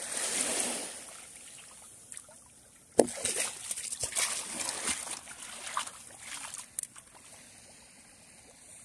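Water splashing and sloshing. It opens with a swell of wash, then from about three seconds in comes a run of irregular splashes that starts with a sharp hit.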